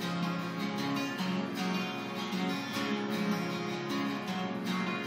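Two acoustic guitars strumming chords together, an instrumental passage between sung lines.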